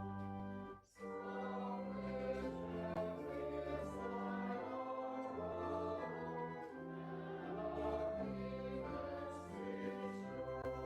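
Offertory music during a church service: slow, sustained chords over a held bass line, with a brief drop-out about a second in.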